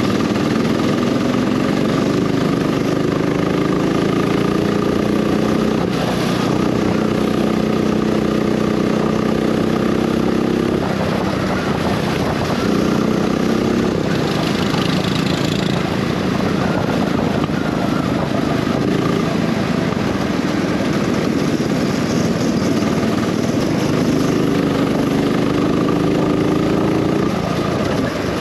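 Go-kart engine heard onboard, its pitch climbing steadily under acceleration and dropping sharply each time the throttle is lifted, about six and eleven seconds in and again near the end.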